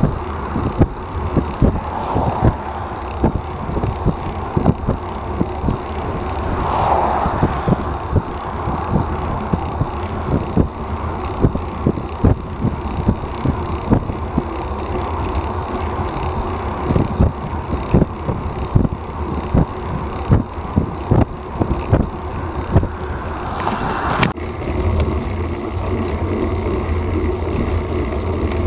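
Wind noise on a bike-mounted Garmin VIRB camera's microphone and road noise from a road bike riding at about 18 mph, with frequent sharp knocks. The sound changes abruptly near the end to a steadier, lower rumble.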